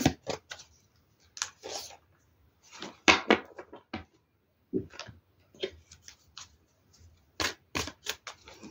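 Tarot cards being shuffled and handled: irregular short riffling snaps and rustles of the card deck.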